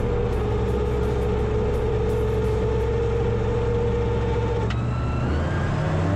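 Turbocharged flat-four Rotax 916 iS engine of a gyroplane running steadily, heard from inside the enclosed cabin. About four and a half seconds in, a click and a rising tone come in over it.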